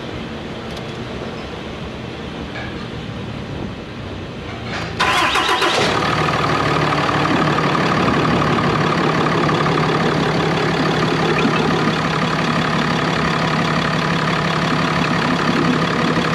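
A Ram 3500's 6.7 Cummins inline-six turbo diesel is cranked and fires about five seconds in, then settles into a steady idle with a constant whine over it. The engine is running to circulate fluid through the freshly filled power steering system after the steering box replacement.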